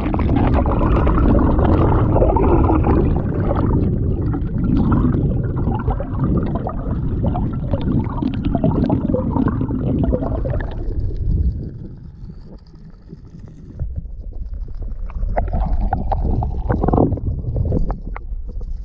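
Underwater rumbling and gurgling of moving water against a submerged camera's microphone. It is loud and continuous, with crackly streaks, eases off about twelve seconds in and picks up again a couple of seconds later.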